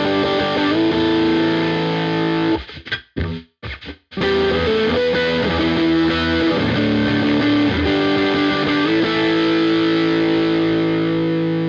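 Epiphone Les Paul Black Beauty electric guitar played through distortion: sustained ringing chords, broken about two and a half seconds in by a second or so of short choppy stabs with gaps, then held chords ringing again.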